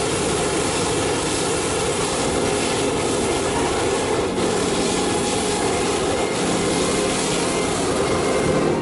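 Hot-air balloon's propane burner firing in one long steady blast that cuts off near the end, heating the envelope as the basket lifts off.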